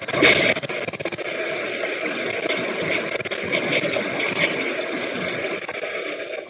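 Shop shaking in an earthquake: a steady rumble with goods and fittings rattling, and a loud clatter just after the start. The sound is thin and cut off at the top, as from a security camera's microphone.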